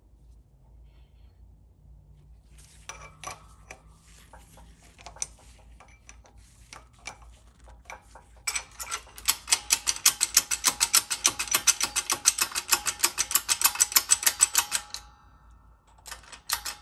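Shop press driving a bushing into a 4R100 transmission gear: a long run of rapid, even clicking that starts a little past halfway and stops about two seconds before the end. Earlier come scattered light clicks and taps of metal tooling being set in place.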